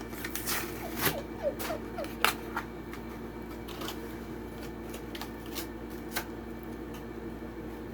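Small cardboard box and plastic insert of a die-cast toy car being handled and opened: scattered crinkles and sharp clicks, with a few short squeaks about a second in. A steady low hum runs underneath.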